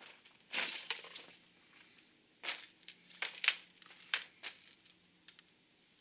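Irregular crunching and shuffling of boots on gravel: a cluster of crunches in the first second, then single short crunches about every half second.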